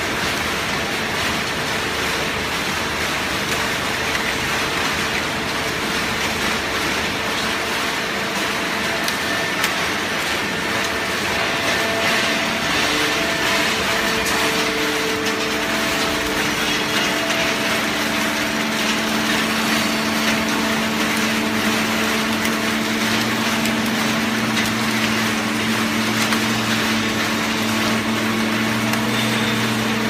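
Steady machinery noise from a hydraulic waste-paper baling machine and its feed conveyor running, with a steady hum setting in about halfway through and holding.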